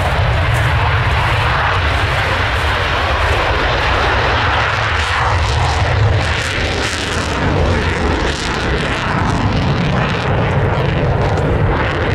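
JASDF F-15J fighter's twin F100 turbofans at full afterburner during its takeoff climb: a loud, steady roar with a rough crackle on top.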